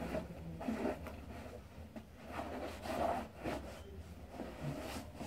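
Cloth rubbed over wet leather boots: an old t-shirt wiping the boots in a series of uneven swishing strokes.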